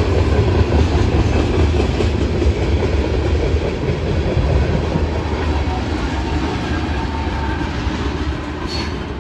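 Freight train of tank cars rolling past, steel wheels running on the rails with a steady rumble. The sound fades over the last few seconds as the last tank car goes by.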